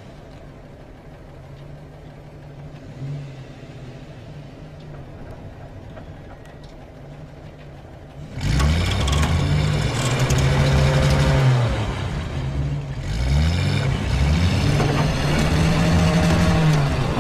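A car engine idling quietly, then loud engine revving starts about eight seconds in, its pitch rising and falling in repeated revs.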